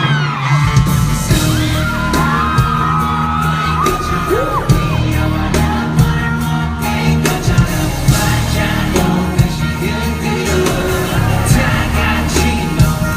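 Loud amplified K-pop song with a heavy beat and a man singing live over the backing track, while fans whoop and yell.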